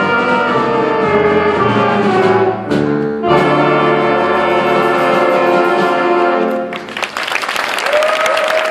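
Student big band of saxophones, trumpets, trombones, piano and drum kit playing the closing bars of a jazz chart: sustained chords, a short break about three seconds in, then a long held final chord that cuts off about seven seconds in. Audience applause breaks out right after.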